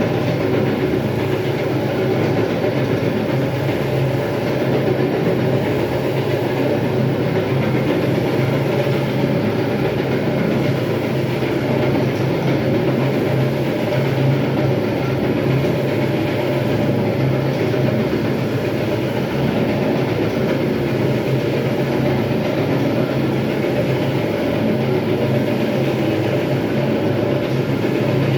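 Electric terrazzo grinding machine running steadily as it grinds the floor: a constant low hum under a rough, even grinding noise.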